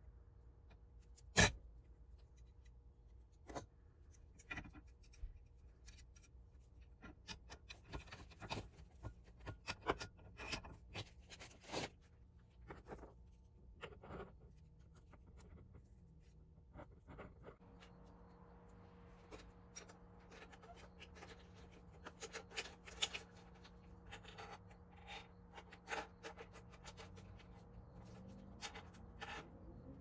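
A hammer striking a pin punch to drive a pin out of a roller chain held in a steel bench vise, with sharp metal taps and clicks of the links being handled. One loud strike comes about a second and a half in.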